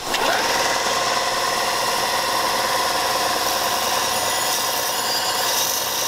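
Electric bench belt sander switching on, its motor spinning up with a quick rising whine and then running steadily, with the welded steel bracket held against the abrasive belt to clean up the weld.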